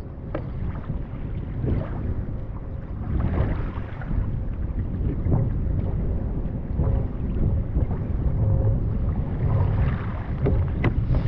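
Wind buffeting the microphone on a kayak at sea, a steady low rumble, with water moving against the hull and occasional short knocks.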